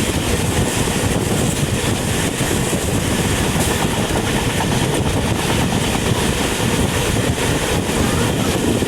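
Train running along the track: a steady, loud rumble of wheels on the rails.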